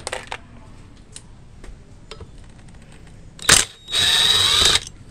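Power drill unscrewing a brake disc bolt: a short burst about three and a half seconds in, then about a second of steady running with a high whine that stops abruptly. A few light clicks of the bit against the bolt come near the start.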